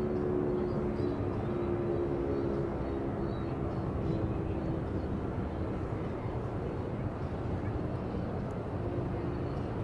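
Steady low rumbling noise, with the faint low tone of a SuperSirex outdoor warning siren dying away over the first few seconds.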